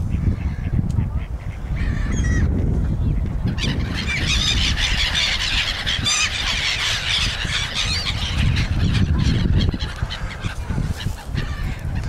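A flock of gulls calling over a lake, swelling into a dense chorus of overlapping calls for several seconds in the middle, over a steady low rumble.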